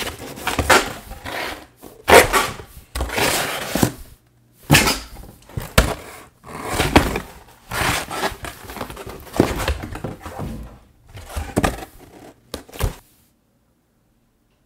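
Cardboard boxes being opened and handled: flaps rustling and scraping, with knocks, in irregular bursts. It stops abruptly about a second and a half before the end.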